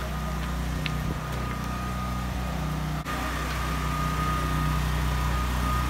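Steady low mechanical hum like a running engine, with a thin steady whine above it and a brief dropout about three seconds in.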